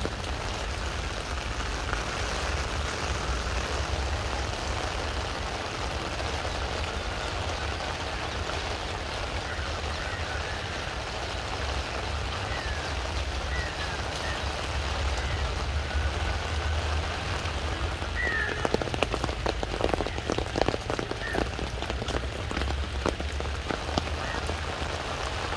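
Steady rain falling on wet paving stones, an even hiss with a low rumble beneath it. About two-thirds of the way through, a run of sharper taps rises over the rain for several seconds.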